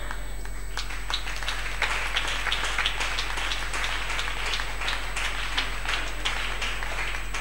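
A congregation applauding, a dense patter of many hand claps that starts about a second in and keeps going.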